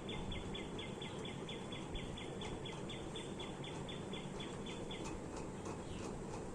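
Rapid, even series of short high chirps, about four a second, that stops about five seconds in, over a steady low background noise.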